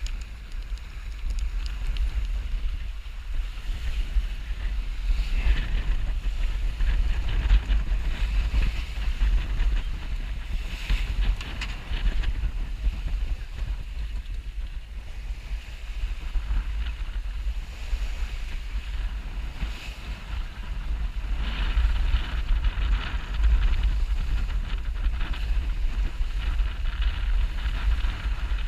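Wind buffeting the microphone of a camera on a sailboat under way, as a steady low rumble, with water rushing and splashing along the hull that swells up several times.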